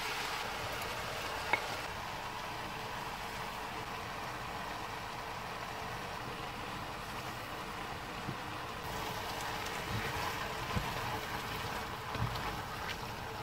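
Diced vegetables sizzling steadily in a large pan as crushed tomatoes are poured over them. A few soft knocks of a wooden spatula stirring come near the end.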